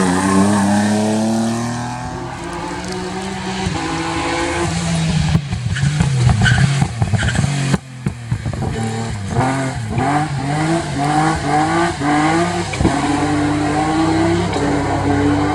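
Rally car engine at full throttle, revving up and shifting up through the gears in quick succession, with short sharp cracks in the middle.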